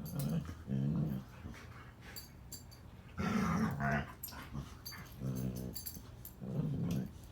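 Two dogs play-growling at each other in about five short bouts, the longest and loudest midway through: gentle play-fighting rather than aggression.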